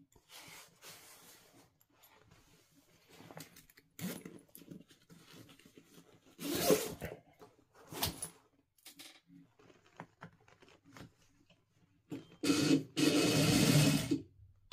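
A leather jacket rustles and scrapes as it is handled and shifted, with two louder handling noises midway. Near the end an industrial sewing machine runs steadily for about two seconds, stitching the leather.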